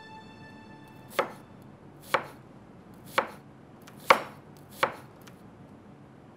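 A knife chopping on a cutting board, five slow, separate chops about a second apart.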